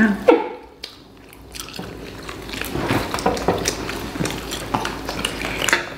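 Several people eating steamed chicken by hand: chewing and biting, with many small irregular clicks and crackles.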